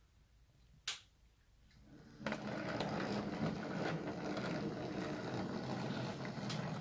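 O gauge model train running on its track: a steady rolling, rattling rumble of motor and wheels on the rails that starts suddenly about two seconds in, after a single click about a second in.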